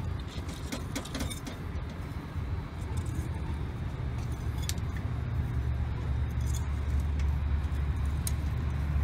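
Light clicks and soft scraping of gloved hands packing potting soil around copper pipes standing in a galvanized metal can, over a steady low rumble that grows louder a little past the middle.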